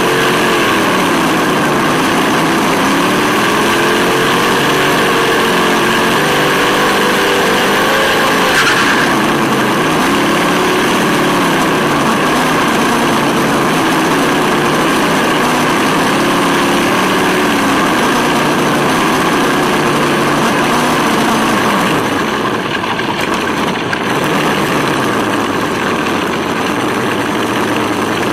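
Sense Hobby ESS-One engine sound module playing a simulated turbo V8 through its speaker, the engine note rising and falling again and again with the RC car's throttle over a steady hiss. Near the end the revving stops and the sound settles lower.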